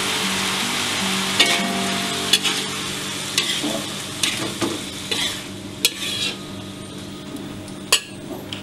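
A spatula stirring and scraping stir-fried tempe, tofu and vegetables in a wok. A frying sizzle thins out as the sweet soy sauce cooks down almost dry, and the spatula strikes the wok in sharp clinks about once a second.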